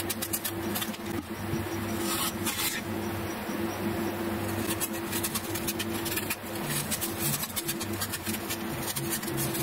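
A sharpened steel ruler's edge peeling an apple by hand: a run of irregular, crisp little scratchy cuts as the edge slices through the skin. A steady low hum runs underneath.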